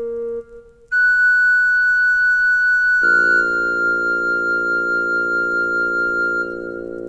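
Yamaha PSR-E263 portable keyboard playing long held notes. A high, pure-toned note enters about a second in and is joined about three seconds later by a sustained lower chord.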